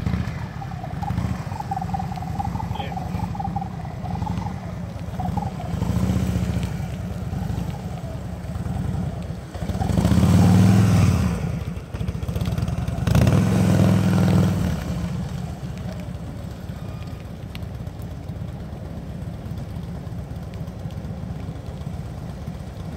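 Motorcycle engine running at low speed under a steady low engine rumble, swelling louder twice, about ten and thirteen seconds in, as the bike is throttled up through the cones.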